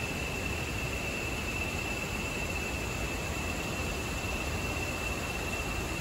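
Forest ambience: an insect holds one steady high-pitched drone over an even rushing hiss.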